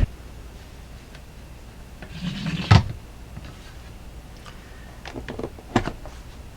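Handling noise on a kitchen counter: a short rubbing scrape about two and a half seconds in that ends in a sharp knock, then a few light clicks and taps near the end.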